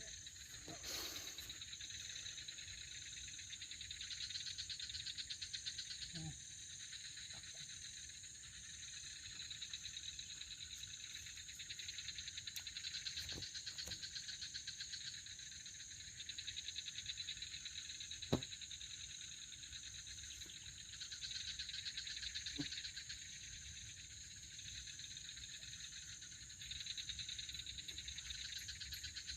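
Night chorus of crickets and other insects, a steady, high, rapidly pulsing trill. A few soft clicks or taps cut through it, one sharper than the rest about two-thirds of the way in.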